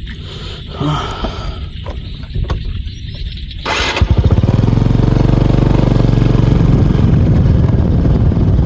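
A motorcycle engine starts a little under halfway through, with a brief loud rush of noise as it catches, then runs steadily at idle.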